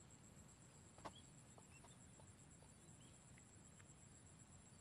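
Near silence in a rice paddy: a faint, steady, high-pitched insect trill, with a few faint short chirps and one soft click about a second in.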